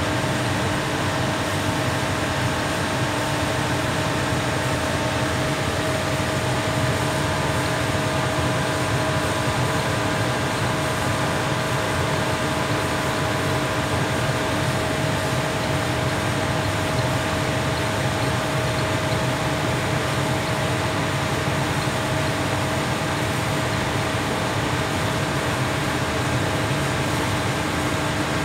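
Blower of a 20 HP floor-standing air conditioner running steadily in fan-only mode with the compressor off: an even rush of air with a constant hum.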